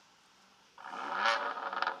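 BMW M2 Competition's twin-turbo straight-six blipped hard about three-quarters of a second in, its pitch rising quickly, then falling off with a rapid string of exhaust crackles and pops.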